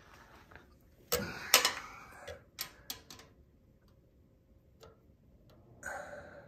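Scattered sharp clicks and light knocks from a steel tape measure being handled and set against the bumper, the loudest about a second and a half in, with a brief rustle near the end.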